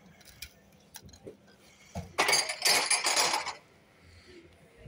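Disposable plastic cup of cold coffee clattering and crinkling as it is handled close to the microphone, a burst of about a second a little past the middle.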